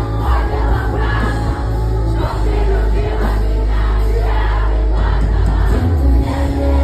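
Live rock band playing loud over a concert PA, with heavy bass and a sung vocal line, and the crowd singing along.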